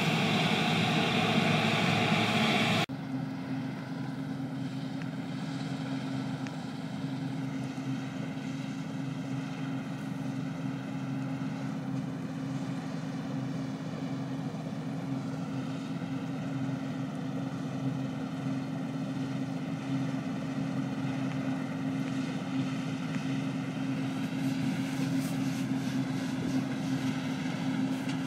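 New Holland TF 78 combine harvester running steadily at work, a constant engine drone. For the first three seconds or so a louder, rushing noise is on top, and it cuts off abruptly.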